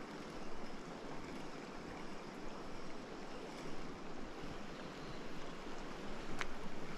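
River water running over a riffle: a steady rushing. A single short tick sounds near the end.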